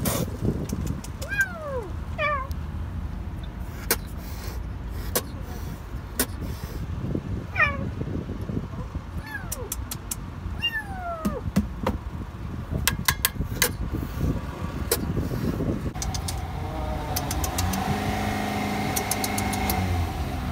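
A kitten trapped inside a car's rear wheel meowing in distress: several high cries, each falling in pitch, spread through the first half, with scattered sharp clicks. From about sixteen seconds a steady vehicle engine hum comes in.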